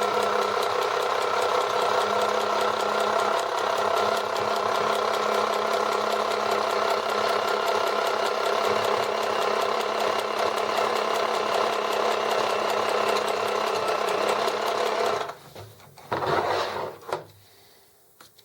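Janome Mini 525 sewing machine running steadily on the foot control, needle stitching a zigzag seam with a rapid, even chatter, then stopping abruptly near the end. A few brief handling noises follow.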